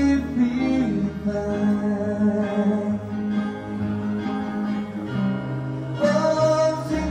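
Live acoustic guitar and keyboard accompanying a man singing into a microphone.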